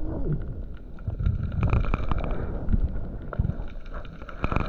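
Muffled underwater water noise: uneven low rumbling and churning of moving water, with scattered clicks and knocks, loudest about half a second before the end.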